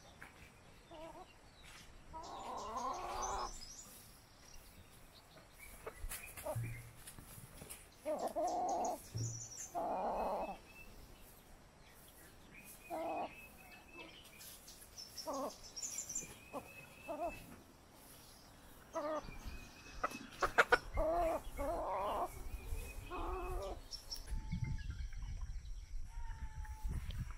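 Domestic chickens clucking in short, scattered calls, with thinner, higher chirps among them. A few sharp clicks come about twenty seconds in, and a low rumble starts near the end.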